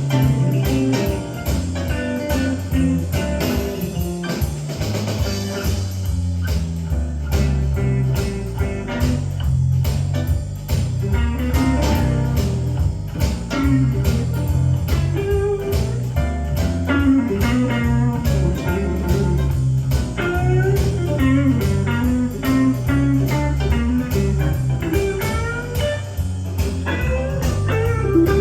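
Blues music with guitar and a steady beat, played back from cassette on a Nakamichi Dragon deck through loudspeakers.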